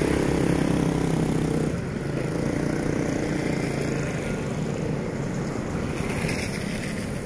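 Vehicle engine running steadily, its hum dropping off after about two seconds and leaving a steady wash of wind-like noise.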